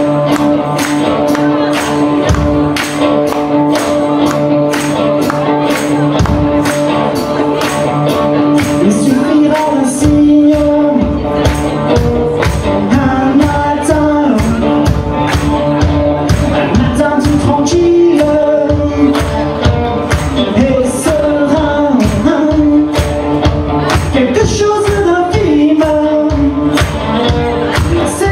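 Pop/rock band playing: a steady drum beat under held chords, with singing, and the band filling out in the low end about ten seconds in.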